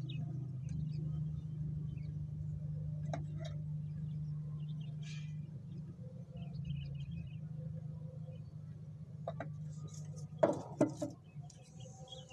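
PVC pipes and fittings being handled and pushed together, giving scattered small clicks and a louder pair of sharp knocks about ten seconds in, over a steady low hum. Faint bird chirps.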